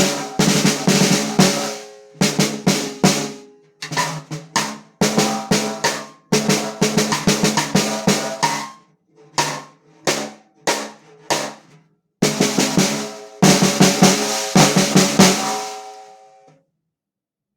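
Pearl free floating piccolo snare drum with a 2 3/8 inch hammered steel shell played in quick runs of strokes and short rolls, with pauses between phrases. The snares buzz brightly and the shell rings after each run, and the last run fades out near the end.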